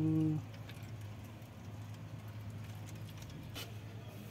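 Low steady hum under faint clicks and rustles of a plastic water bottle and its cap being handled. A short steady pitched tone sounds at the very start.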